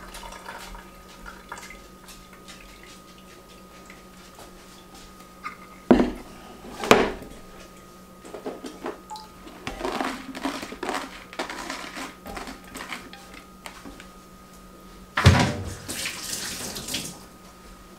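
Kitchen handling sounds: glass pickle jars and a plastic colander being moved and knocked, with two sharp knocks about six and seven seconds in and scattered clatter after. Near the end a loud knock is followed by the sink tap running for about two seconds as a container is rinsed.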